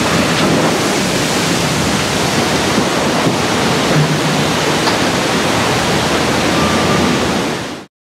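Canal water rushing and churning as a cargo ship slides sideways off its slipway in a side launch, a loud steady wash of noise that cuts off suddenly near the end.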